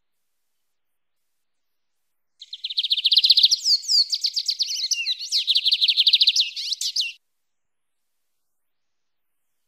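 Lined seedeater (bigodinho) singing its wild-type 'mateiro' song: one song of about five seconds, starting a couple of seconds in, made of fast runs of high, rapidly repeated notes broken by quick downward sweeps.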